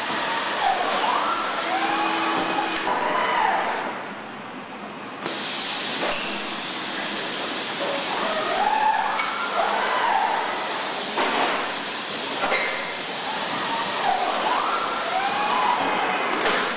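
KUKA industrial robot arms in a car-body welding cell, their servo drives whining up and down in pitch as the arms swing, three times in similar cycles, over a steady machine hiss.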